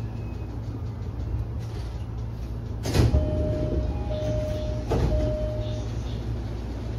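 Commuter train standing at a platform with a steady low hum. Two loud knocks come about two seconds apart, and a series of short, evenly pitched beeps starts just after the first and runs on past the second: the train's sliding doors closing with their warning beeper.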